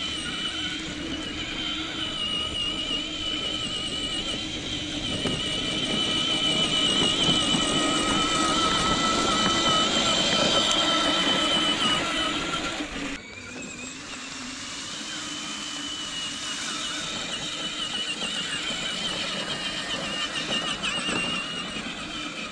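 Funcid 24V kids' ride-on UTV driving under remote control: its twin 200 W electric drive motors and plastic gearboxes give a steady high whine over the rumble of plastic wheels rolling. About 13 seconds in the sound drops suddenly and the whine shifts, then runs on more quietly.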